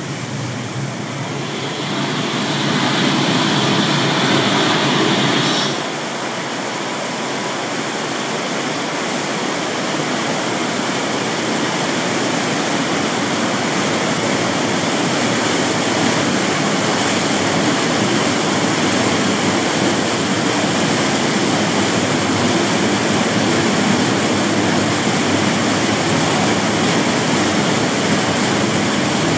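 Staged flash-flood torrent rushing down an artificial rock canyon, a loud steady roar of pouring water. A louder rush in the first seconds cuts off sharply about six seconds in, and the roar then slowly builds again.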